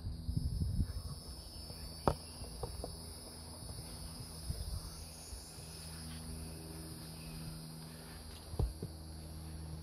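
Steady, high-pitched insect chorus at two constant pitches, with a sharp click about two seconds in and another near the end.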